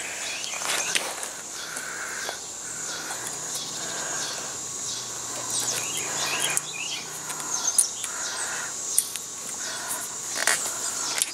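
Outdoor ambience of birds chirping and a steady high insect buzz. A few sharp clicks come from a bicycle's seat-post quick-release clamp being worked by hand.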